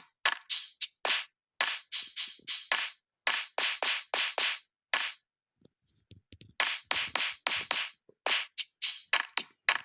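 A drum struck with sticks in an uneven rhythm, sharp separate hits of about two to three a second, with a pause of about a second just past the middle before the hitting resumes.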